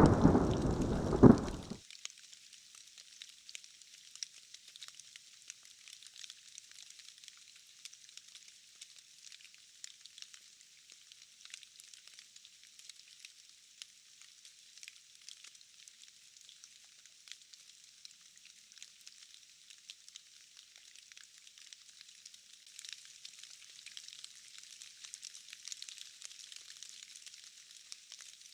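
A loud rumble of thunder cuts off suddenly about two seconds in. It leaves a steady, faint hiss of rain with fine crackling ticks.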